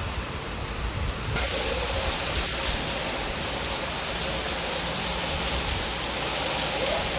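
Rain falling steadily, a dense even hiss that grows louder and brighter about a second and a half in.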